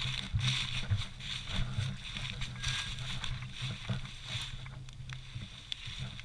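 Footsteps through tall grass and weeds, with brush swishing against a hunter's legs at each stride in an uneven rhythm.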